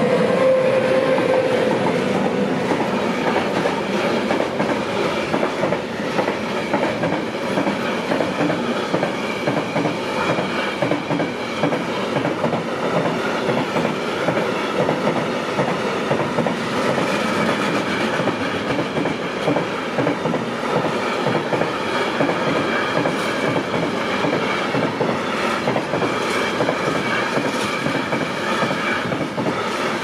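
A container freight train passing close by on the level crossing, its locomotive first, then a long run of wagons with steady wheel clatter and rumble over the rails. Faint high ringing tones come and go in the second half.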